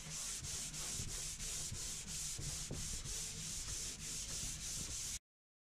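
Sandpaper on a hand sanding block rubbed back and forth over a wooden tabletop, about three strokes a second, to take down its scratched finish before staining. The sound cuts off suddenly near the end.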